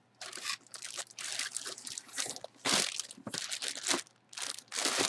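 Clear plastic bag crinkling and rustling in a run of uneven bursts as gloved hands lift a bagged jersey out of a cardboard box.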